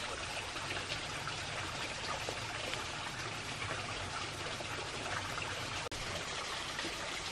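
Steady rush of running water, like a stream, with a momentary dropout about six seconds in.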